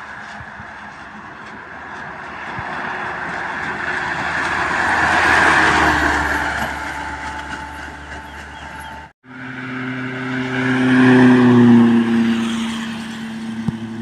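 Traffic passing close by on a highway: tyre and engine noise swells to a peak about five seconds in and fades. After a sudden cut about nine seconds in, a truck's engine drones past, loudest near the twelve-second mark, its pitch sliding slightly down as it goes by.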